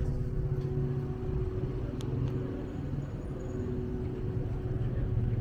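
Street traffic: a low rumble of motor-vehicle engines, with a couple of faint clicks about two seconds in.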